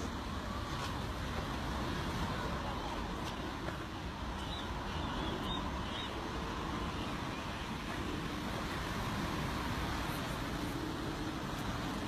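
Steady outdoor rumbling background noise, heaviest in the low end, with a few faint high bird chirps about four to six seconds in.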